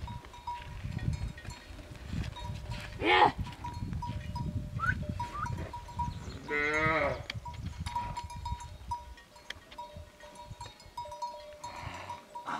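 A herd of goats on the move, with an animal bell ringing over and over. Two loud goat bleats come through, one about three seconds in and a quavering one about six and a half seconds in.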